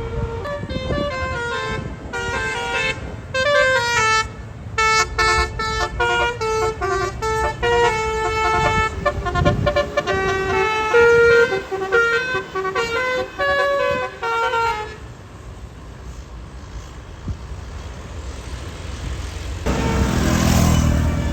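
A tour bus's basuri telolet horn playing a fast melody of many short, changing notes for about fifteen seconds, then breaking off. Bus engine and road noise follow, rising to a louder rush near the end.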